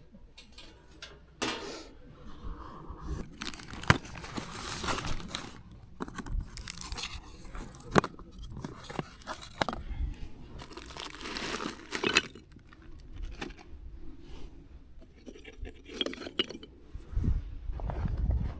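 Irregular rustling and crinkling as gear is handled, with a few sharp clicks and knocks, heavier thumping near the end.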